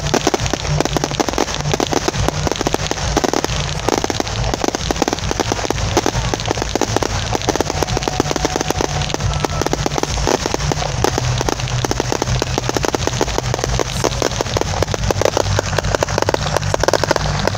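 Fireworks going off in a dense barrage: rapid, continuous crackling and popping from many shells, comets and ground fountains at once, over a low rumble.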